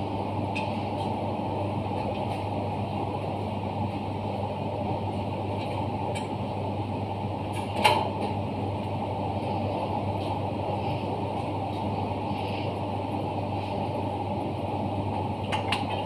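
Steady machinery hum with light clicks of hand tools on the dry-cleaning machine's metal fittings, and one sharp metallic knock about halfway through.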